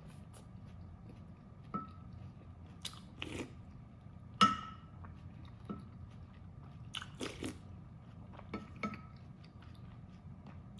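Close-miked chewing of duck meat: scattered wet smacks and crunches, the loudest about four and a half seconds in, over a faint steady high hum.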